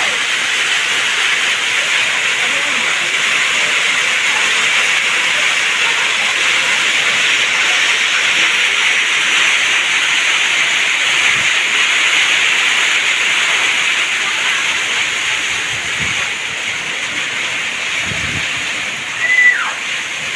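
Heavy torrential rain falling, a loud, steady hiss that eases slightly in the last few seconds. Near the end comes a short high whistle-like sound that falls in pitch.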